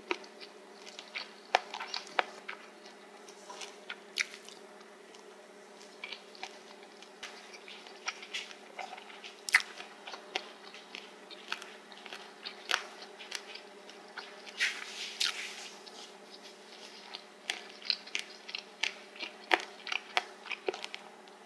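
Close-miked chewing of spicy stir-fried pork cartilage (odolppyeo): irregular crisp crunches, a few each second.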